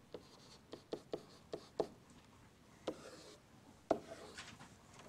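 Stylus writing on a pen-input screen: a string of light, irregular taps and short scratching strokes as equations and a brace are drawn.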